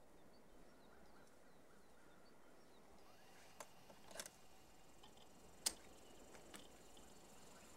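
Near silence broken by a few sharp, isolated clicks from about three and a half seconds in: keys pressed and a joystick worked on a metal remote-control console.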